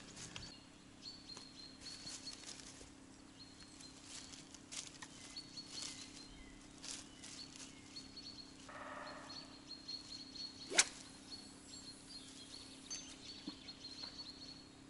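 Faint rustling and small clicks of a fishing rod and line being handled, with one sharp click a little before eleven seconds in. A faint steady low hum runs underneath.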